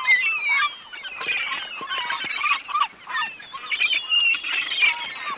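A flock of domestic fowl calling, many short honking calls overlapping in a dense, continuous chorus.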